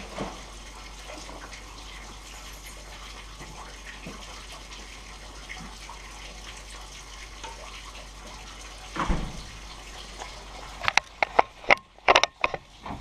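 Gloved hand stirring a thick, freshly mixed caustic soda and xanthan gum solution in a stainless steel bowl: a steady wet swishing. Near the end, a quick run of sharp knocks and clatters.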